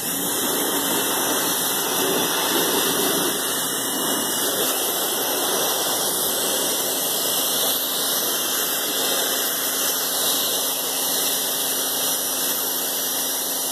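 Pressure washer running, its wand spraying a steady jet of water onto weathered wooden deck boards to strip mold and mildew; the hiss of the spray starts abruptly and holds steady, over a faint steady motor hum.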